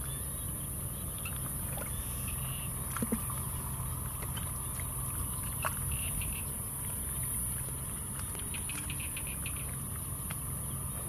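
Faint wet squelches and pats of hands digging in mud, heard a few times over a steady low hum and an even high hiss.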